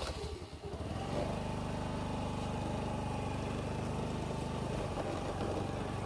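Honda scooter's small single-cylinder engine running just after being started, a little uneven for the first second and then settling into a steady, even note as the scooter rides off slowly.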